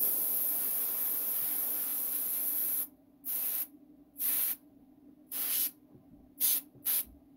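Paint sprayed in one long hiss of about three seconds, then five short bursts in quick succession.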